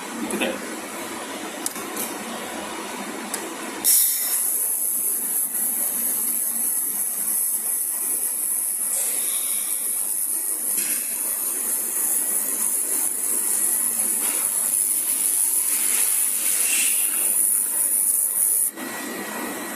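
Handheld fiber laser welding torch running a weld: a steady high hiss of shielding gas and the weld starts suddenly about four seconds in and cuts off shortly before the end, over a lower steady machine noise.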